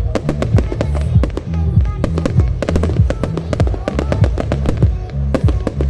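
Fireworks display: rapid bangs and crackles, many a second, over loud music with a heavy bass line.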